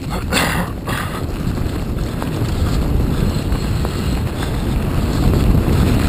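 Wind rushing over the microphone and bike tyres rumbling over a dirt forest trail at speed, with a brief hiss about half a second in and a few light knocks from the bike.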